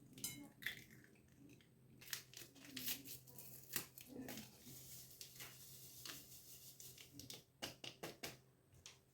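Faint clicks, taps and crackling as an egg is cracked and its shell broken open over a bowl.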